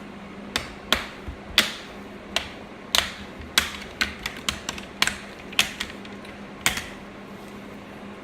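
Plastic screen bezel of a Dell 7567 laptop being pried loose by hand: a run of about fifteen sharp, irregular clicks and snaps as its clips pop free, stopping well before the end.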